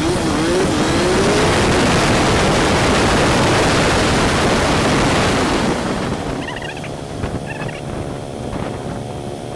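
Honda CG125 single-cylinder four-stroke engine running on the move, under a loud rush of wind and road noise that lasts about six seconds and then drops away to the steady engine note. A few short, high warbling chirps come after the rush dies down.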